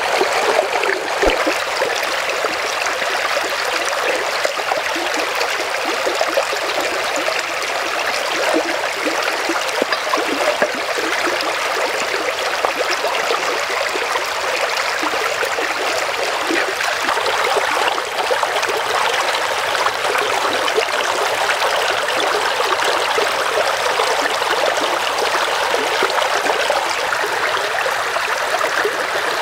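Shallow stream running over rocks: a steady rushing and trickling of water.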